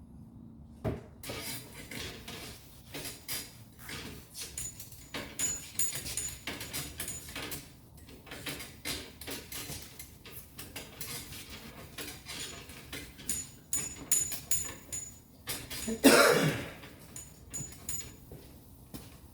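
Irregular clicks, knocks and clatter of objects being handled, with one louder, longer noise about sixteen seconds in.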